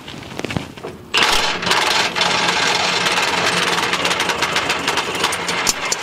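Cordless impact wrench hammering steadily on a rear suspension bolt through a long extension, starting about a second in and running for about five seconds without a pause; the bolt is tight and does not come free.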